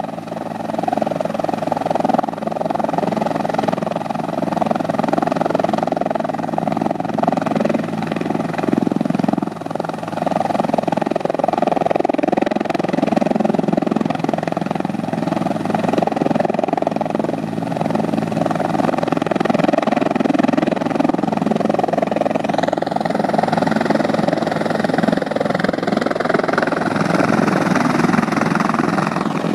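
Rescue helicopter's rotors and turbine engines running steadily. About three-quarters of the way through, a higher whine and hiss come in and stay to the end.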